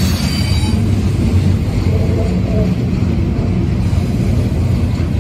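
Freight train of loaded double-stack container cars rolling past, a steady low rumble of wheels on the rails. Faint thin wheel squeals come near the start and again about two seconds in.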